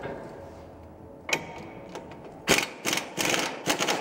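A wrench working on the lower ball-joint fastening of a car's front suspension. One sharp metallic click comes about a second in, then a run of rapid clicks and rattles in short bursts over the last second and a half.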